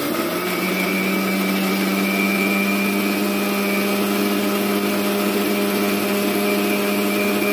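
Electric mixer grinder (mixie) running at a steady speed, pureeing muskmelon pieces with sugar in its steel jar: a steady motor hum with a higher whine over it.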